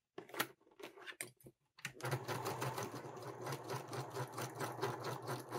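Electric sewing machine stitching a short basting seam: a few light clicks of handling, then about two seconds in the motor starts and runs steadily, a fast even needle rattle over a low hum.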